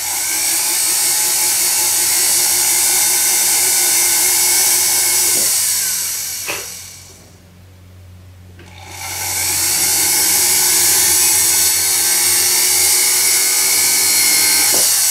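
High-pitched whine of a rotary handpiece spinning a slightly dull setting burr, drilling flush-setting seats for diamonds into a silver cuff. It runs for about six seconds, winds down to a stop, then spins up again about nine seconds in and keeps running.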